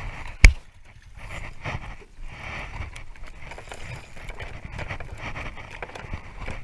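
A single sharp, loud click about half a second in, then a spinning reel being wound in, with low rumble underneath.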